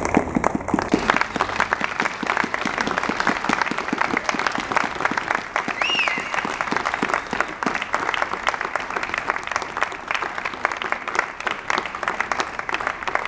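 Applause from a small audience, steady clapping throughout. A brief high pitched cry rises and falls about six seconds in.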